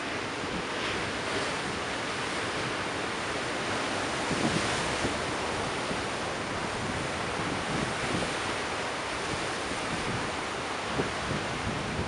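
Rough ocean surf breaking and washing in as a steady rush of noise that swells about four to five seconds in. Wind buffets the microphone with low thumps.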